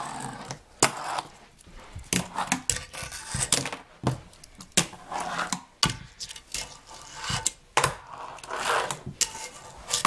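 Tech Deck fingerboard clacking and knocking on a wooden ramp and tabletop: an irregular string of sharp clicks and knocks, with short scrapes of the wheels and tail in between.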